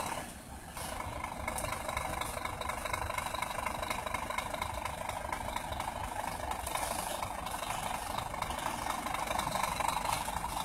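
Heavy truck's diesel engine running at low speed as the truck crawls over a wooden plank bridge. It grows a little louder toward the end as it comes closer.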